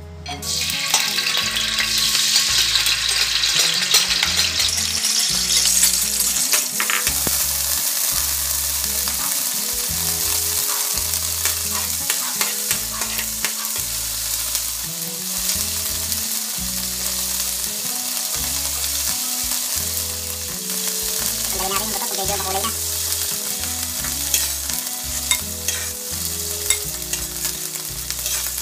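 Annatto (atsuete) seeds sizzling in hot cooking oil in a wok, stirred and scraped with a metal spatula. The sizzle starts about half a second in, as the seeds hit the oil, and is loudest over the first few seconds.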